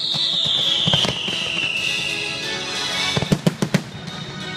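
Fireworks display: a long falling whistle over the first couple of seconds, a sharp bang about a second in, then a quick cluster of sharp bangs a little after three seconds in. Show music plays underneath.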